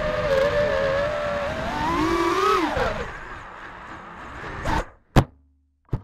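FPV quadcopter's Xing 2450kv brushless motors whining in flight, rising in pitch for a moment, then spinning down steeply as the quad is accidentally disarmed. A fainter rushing noise follows, then one sharp knock about five seconds in, with a couple of small clicks near the end.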